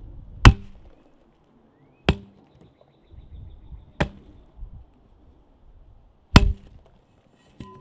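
A metal pipe smashing down onto watermelons on the ground: four hard, wet strikes about two seconds apart, the first and last the loudest, then a lighter knock near the end.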